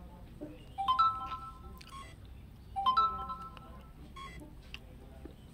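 Electronic chime sounding twice, about two seconds apart, each a quick rising three-note tone held for about a second: the confirmation signal as the smartphone gimbal pairs with its phone app.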